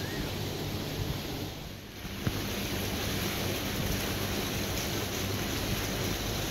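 Steady rushing noise of wind on the microphone outdoors, dipping briefly and broken by a click about two seconds in.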